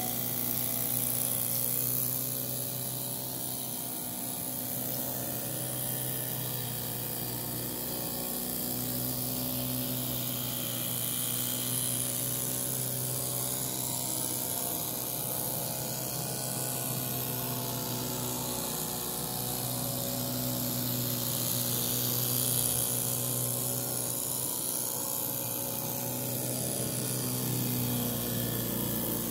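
Miniature live-steam traction engine running steadily at high speed, its rapid exhaust beats merging into one continuous mechanical note, which falters briefly twice, about 8 and 19 seconds in.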